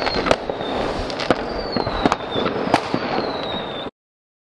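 Fireworks sound effect: a run of sharp bangs over continuous crackling, with three slow falling whistles. It cuts off suddenly near the end.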